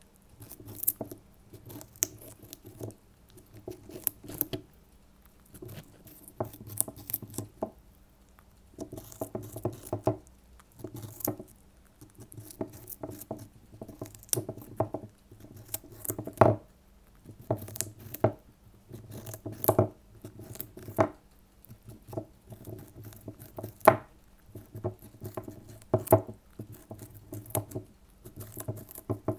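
Syrian hamster gnawing a piece of raw carrot right at the microphone: quick runs of small crisp crunches and clicks, in bouts a second or two long with short pauses between them.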